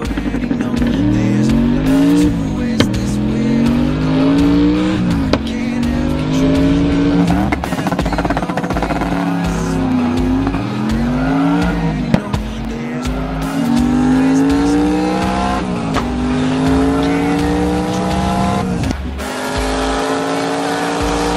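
Chevrolet Corvette engine revving hard under acceleration. Its pitch climbs, drops sharply at each gear change and climbs again, over background music with a steady beat.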